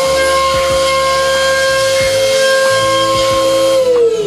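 DATRON high-speed milling spindle whining at a steady high pitch while cutting a metal part, over a steady hiss. Near the end the whine starts to fall in pitch as the spindle lifts clear of the part and spins down, ahead of a tool change.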